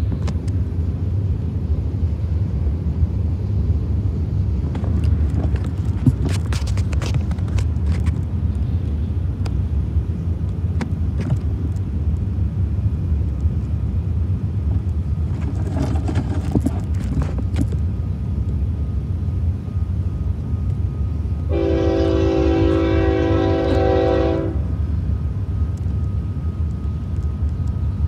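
Diesel locomotive horn on an approaching train sounding one long blast of about three seconds, about two-thirds of the way in, over a steady low rumble.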